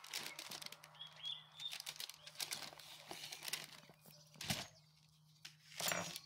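Parchment paper crinkling and rustling under hands handling a rack of raw pork ribs, with soft tearing as the membrane is peeled off the bones. Two louder rustles come near the end.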